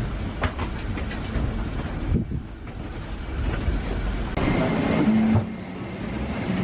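Low rumble and clattering in an airport jet bridge as boarding passengers walk along it. About four seconds in it gives way to the background hum of the aircraft cabin.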